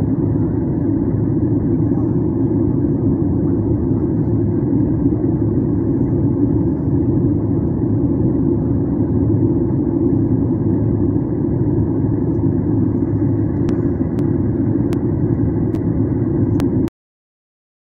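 Steady airliner cabin noise in flight: the drone of the jet engines and airflow heard from a window seat. A few faint clicks come near the end, then the sound cuts off suddenly.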